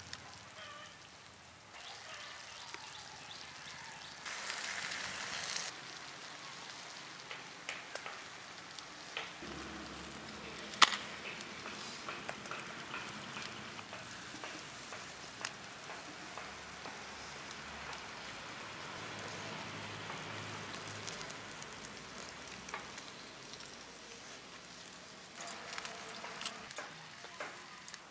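Chicken leg pieces sizzling steadily on banana leaves in a pan over a wood fire, with scattered sharp clicks and pops, the loudest about eleven seconds in.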